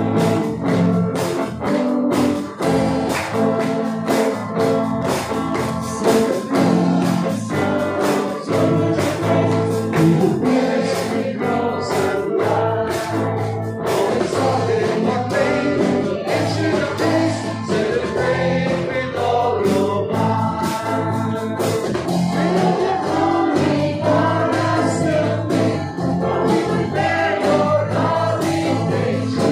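Live worship band playing a song with a steady beat: electric and acoustic guitars, keyboard and percussion, with voices singing the melody.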